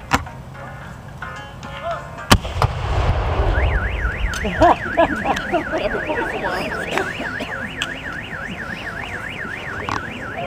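Two salute gunshots, one right at the start and a louder one about two seconds in. About a second later a car alarm starts wailing in quick rising and falling sweeps, about three a second.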